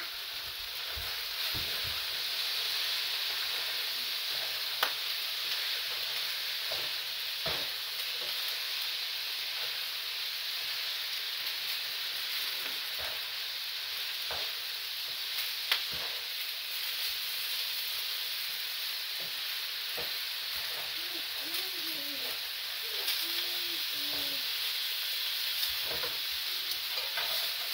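Sausages and a potato hash frying in skillets, with a steady sizzle. A few sharp clacks come from a metal utensil knocking the pan as the food is stirred and turned.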